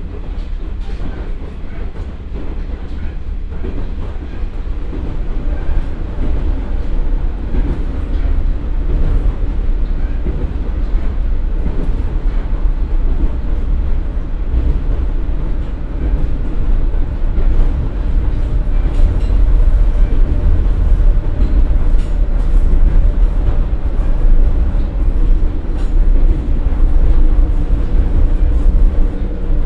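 Running noise inside a JR West KiHa 47 diesel railcar with a Komatsu engine and KTF3335A transmission: a heavy, steady rumble of the underfloor diesel and wheels on the track while the railcar slows from about 68 to 50 km/h. The rumble grows louder in the second half, and a steady tone joins in about halfway through.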